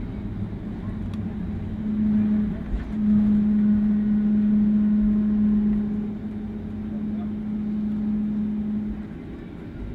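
Cabin noise inside a Boeing 737-400 rolling along the runway after landing, its CFM56-3 engines running at low power. A steady low hum comes in about two seconds in, is loudest for a few seconds, and fades out near the end.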